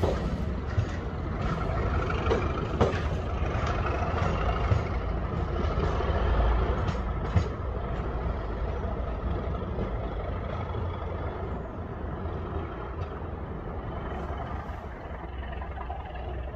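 Colas Rail Class 37 diesel locomotive and its test train drawing away. The English Electric V12 diesel rumbles while the wheels click over the rail joints, the sound slowly fading as the train recedes.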